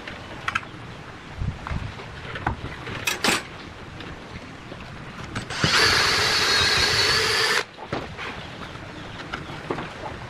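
A small power tool's motor runs with a high whine for about two seconds in the middle, then cuts off abruptly. Light clicks and knocks of handling come before and after it.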